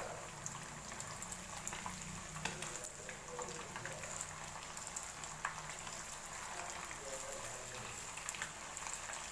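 Masala-coated seer fish (vanjaram) steaks shallow-frying in hot oil in a small pan: a steady sizzle with many small crackles and pops.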